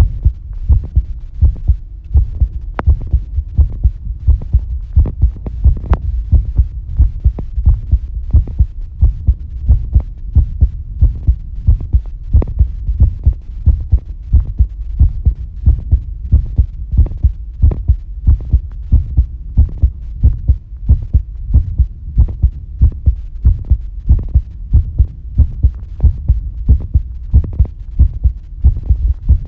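A human heartbeat picked up close to the chest: steady, evenly spaced low thuds repeating without a break, with a faint steady hum underneath.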